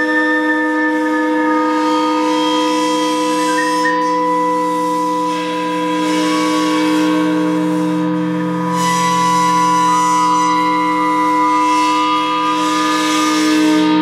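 A flute playing long, breathy held notes in phrases, breaking briefly about four and eight seconds in. Under it, gongs and singing bowls keep up a steady ringing drone.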